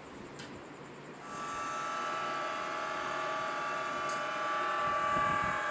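Electric motor of a stainless-steel liquid mixer switched on about a second in, then running with a steady whine.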